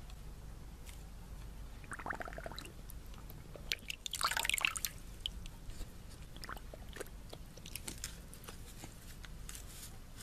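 A dog's muzzle dipping and splashing in a metal bowl of water: scattered small splashes and drips, with a louder spell of splashing about four seconds in.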